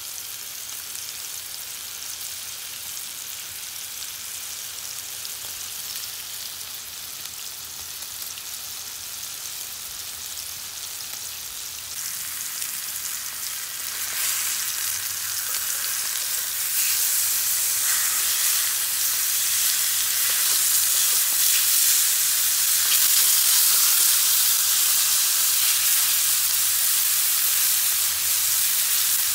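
Spice-rubbed beef steaks searing in hot oil in a cast-iron skillet, a steady hissing sizzle. The sizzle grows louder in steps around the middle, as tongs turn the steaks.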